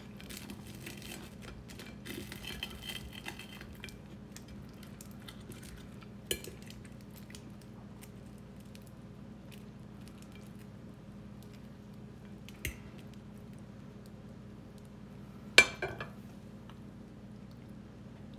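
Metal fork scraping and clinking on a ceramic plate while cutting through toast and egg. Scraping over the first few seconds, then a few single sharp clinks, the loudest about three-quarters of the way through. A steady low hum runs underneath.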